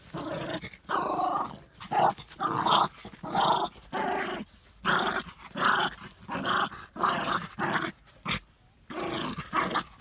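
A dog growling at its owner in a run of short, rough bursts, one or two a second, with a brief break near the end.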